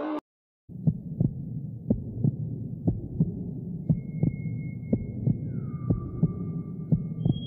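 Dark ambient soundtrack: a low drone with a heartbeat-like double thump about once a second, starting after a brief silence. Thin, high held tones come in from about four seconds in, one sliding down in pitch near the end.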